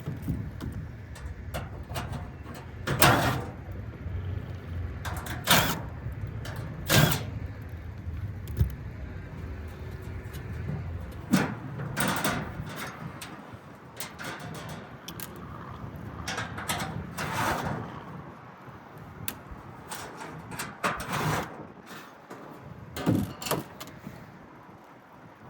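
Sheet-metal access panels of a rooftop HVAC unit being handled and opened: scattered metallic clanks, knocks and rattles, over a low rumble that fades about halfway through.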